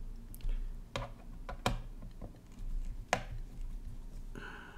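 A handful of sharp, irregular clicks and taps from a hand screwdriver working the cooler screws on a graphics card's circuit board, the loudest about three seconds in, over a low steady hum.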